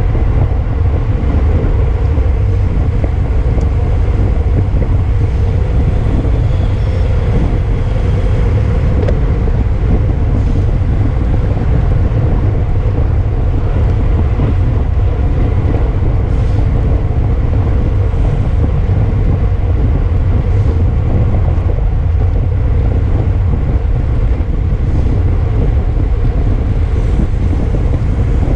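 Wind buffeting the camera microphone of a bicycle moving at race speed: a steady, loud low rumble.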